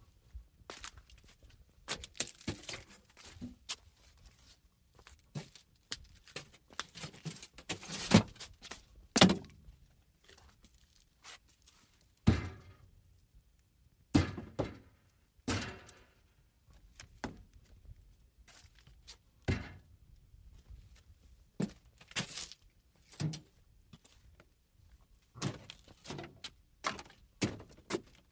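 Footsteps walking over junkyard scrap and debris: irregular knocks, clatters and thuds as items are stepped on and shifted, with a few louder thuds about a third of the way in.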